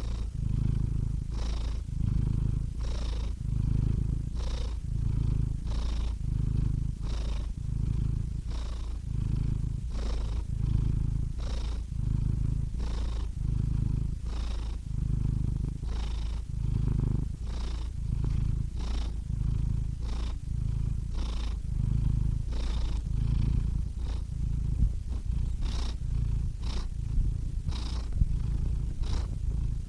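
Domestic cat purring steadily, a low rumble that swells and eases in a slow, even rhythm about every second and a half.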